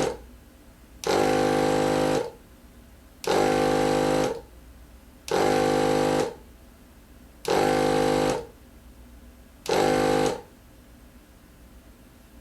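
Air pump inflating a 10-inch scooter tire's new inner tube toward about 30 psi, running in five spurts of about a second each, roughly two seconds apart, then stopping.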